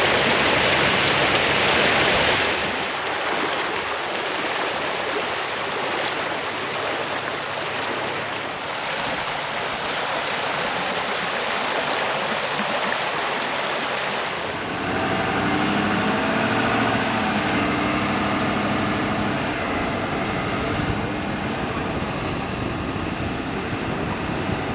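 Tidal falls: seawater rushing steadily over rocks as the tide pours through a narrow gap. About fifteen seconds in it gives way to a car's engine and road noise while driving.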